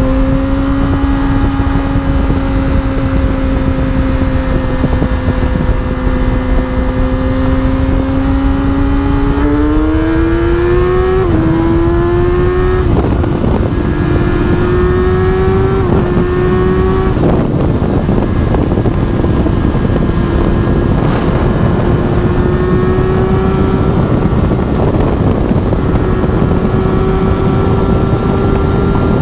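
2011 Kawasaki ZX-10R's inline-four engine, heard from on board at highway speed. It runs at a steady pitch, then about a third of the way in it is opened up and the pitch climbs, dipping briefly at two upshifts before holding higher and steady. Heavy wind noise on the microphone throughout.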